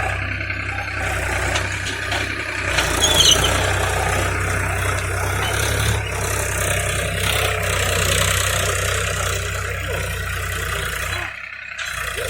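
Tractor's diesel engine running steadily, with a brief drop in sound about a second before the end.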